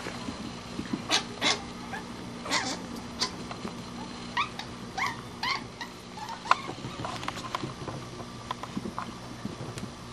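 Young mink squeaking while they play-fight: a dozen or so short, high chirps scattered through, some rising and falling in pitch.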